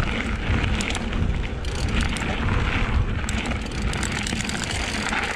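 Mountain bike coasting downhill on a gravel road at about 20 km/h: wind rumbling on the microphone, with tyre crunch and small rattles and clicks from the bike.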